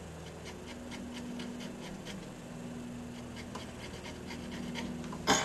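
Pencil scratching short marks onto a plywood board, over a steady low hum, with a single sharp knock near the end.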